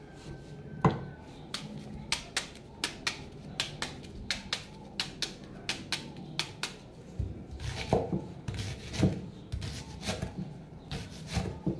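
Kitchen knife cutting a white onion: a run of light, sharp clicks, about two or three a second, as the blade scores the onion, then heavier knocks of the knife on a plastic cutting board from about seven seconds in as the onion is diced.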